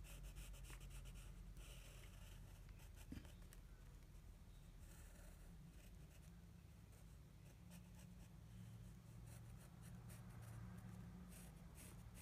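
Faint scratching of a wooden pencil drawing on lined notebook paper, coming and going in short strokes.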